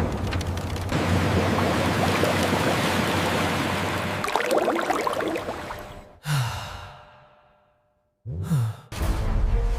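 Steady factory machinery noise with a low hum, fading out over a couple of seconds. Then two short sounds sliding down in pitch, with a moment of near silence between them.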